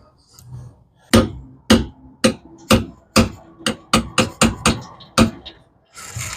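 About a dozen hammer blows on metal, spaced about half a second apart at first and then coming quicker. Each blow has a short metallic ring.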